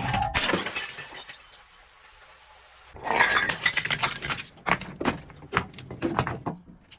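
Glass bottles being crushed and breaking: crunching and cracking with sharp clinks, in two spells, the first lasting about a second and a half, the second starting about three seconds in and running longer with many sharp cracks.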